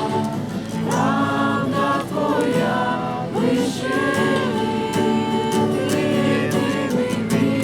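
A group of people singing a song together, many voices blending on sustained, shifting notes.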